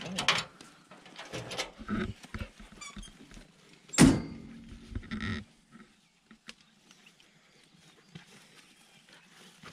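Hound pups yelping and whining as they scramble off a wooden pickup tailgate, with scattered knocks and one loud thump about four seconds in.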